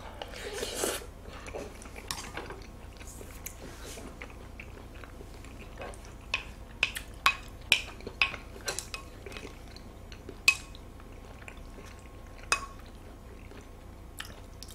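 Wooden spoon and chopsticks clicking and tapping on a plate while raw beef (yukhoe) is stirred and picked up: a quick run of sharp clicks from about six to nine seconds, then single clicks a couple of seconds apart. Faint chewing in the first second.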